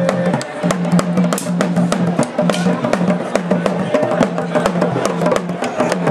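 Traditional drumming: many sharp, fast drum and percussion strikes in a steady rhythm, over a low held note that repeats in short phrases.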